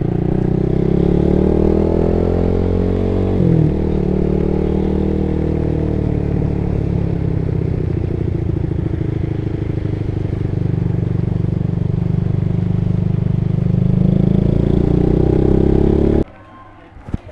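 Honda Supra GTR150's single-cylinder four-stroke engine running through an aftermarket exhaust while riding. Its note rises and falls with throttle, with a quick dip about three and a half seconds in, and cuts off suddenly near the end.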